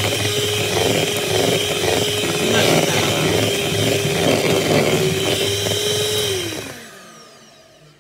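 Electric hand mixer beating butter icing in a bowl, a steady motor whine; about six seconds in it is switched off and the whine falls in pitch and fades as the motor winds down.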